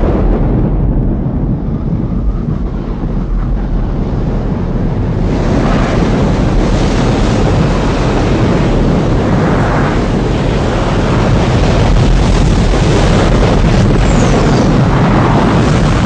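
Continuous deep rumbling roar, a cinematic sound effect for an asteroid striking the Earth and its fireball spreading. The sound grows fuller and brighter from about five seconds in.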